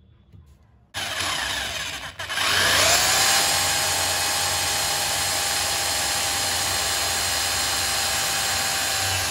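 Electric drill driving a screw through a white plastic foot into a square iron tube frame. About a second in it starts up; after a short break its motor spins up with a rising whine and then runs at a steady speed.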